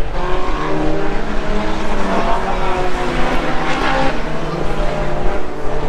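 Racing car engines running hard on the circuit: steady engine notes that step to new pitches a few times as the cars shift and pass, with one note rising about two thirds of the way through.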